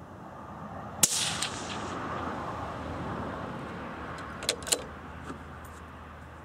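A single shot from a suppressed CZ .17 HMR bolt-action rifle about a second in, a sharp crack with a brief ring-off, then two quick metallic clicks of the bolt being worked a few seconds later. Under it, a broad rushing noise swells and fades.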